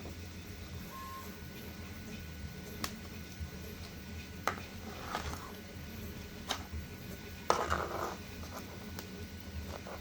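A Stanley knife cutting and trimming a 3D-printed plastic part: scattered sharp clicks and snaps, with a short scrape about seven and a half seconds in, over a low steady hum.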